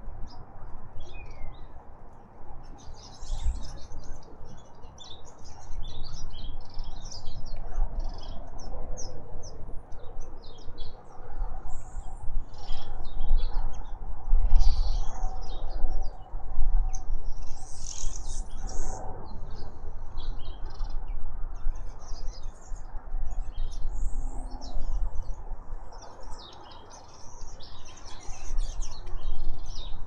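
Several wild birds chirping and calling, many short high calls overlapping throughout, over a low rumble.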